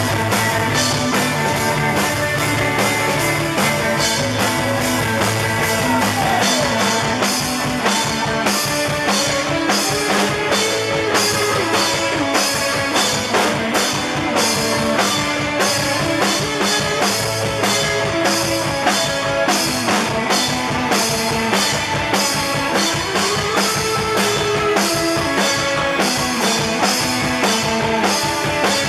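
Live rock band playing, with a drum kit keeping a steady beat under electric guitar.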